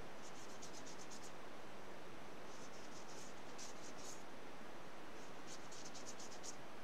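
Child's watercolour brush flicked quickly across watercolour paper, the bristles brushing in three bursts of rapid short strokes, over a steady background hiss.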